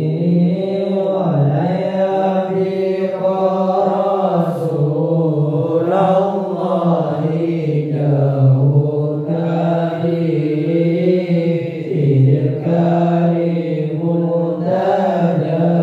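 Sholawat chanted in Arabic by a young man into a microphone: long held melodic lines that slowly rise and fall.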